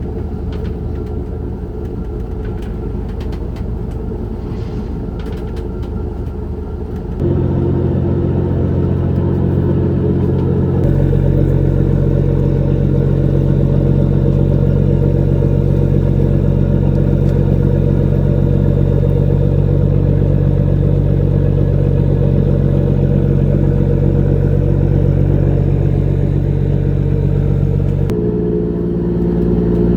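Trawler's diesel engine running steadily with a deep hum; it gets suddenly louder about seven seconds in, and its tone shifts again near the end.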